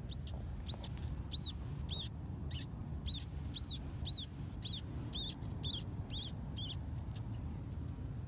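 Baby field mice squeaking: a series of short, high-pitched squeaks, each rising and falling in pitch, about two a second, stopping shortly before the end.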